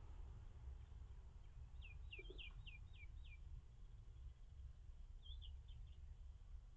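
A bird chirping faintly: a quick run of about six short, high, falling chirps, then a shorter run of three or four, over a low steady hum.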